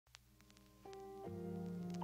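Soft instrumental background music beginning, with held notes coming in about a second in and building in level.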